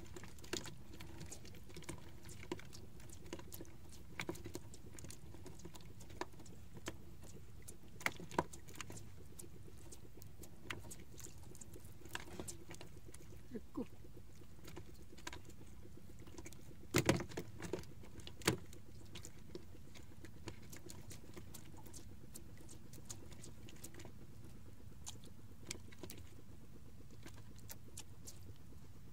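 Scattered light clicks, taps and rustles from a fishing handline, its hooks and a freshly caught round scad being handled in a small outrigger boat, with a cluster of louder taps about 17 seconds in and a sharp one a second later, over a faint steady low hum.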